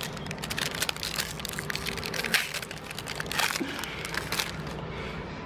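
Trading cards and their packaging being handled by hand: irregular crinkling and crackling with small clicks, loudest about two and a half and three and a half seconds in.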